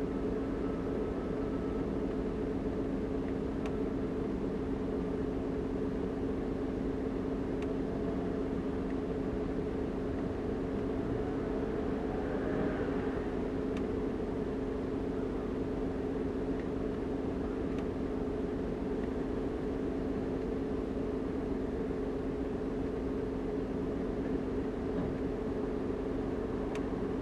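Steady drone heard from inside a car idling in stopped traffic, with two constant hum tones that never change in pitch, and a faint swell of noise about halfway through.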